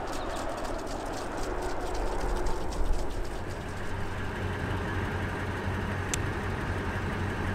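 Wheel-line irrigation sprinklers hissing with irregular ticking, then a Toyota SR5's engine idling steadily from about halfway through.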